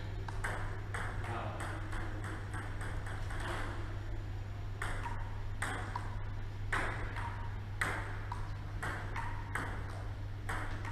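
Table tennis rally: the ball clicking sharply off the rubber paddles and bouncing on the table, one or two clicks a second in an uneven run, over a steady low hum.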